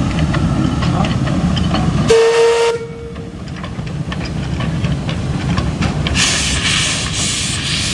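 1907 Fowler 0-6-2T narrow-gauge steam tank locomotive: a low rumble as it runs, then one short steam-whistle blast about two seconds in, a single steady note lasting about a second. From about six seconds, a loud hiss of steam venting at the cylinders.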